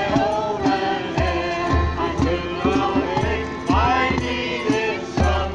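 Hymn music: voices singing a melody over amplified backing with a low bass note about twice a second.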